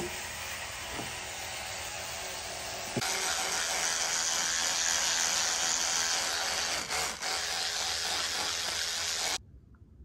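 Electric toothbrush buzzing steadily while brushing teeth. It gets louder about three seconds in, falters briefly twice a few seconds later, and stops suddenly near the end.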